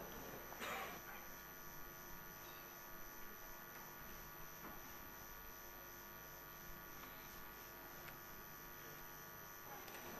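Faint steady electrical hum over quiet room tone, with a brief faint rustle about a second in.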